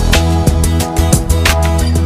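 Background music with a steady beat, drums over a bass line.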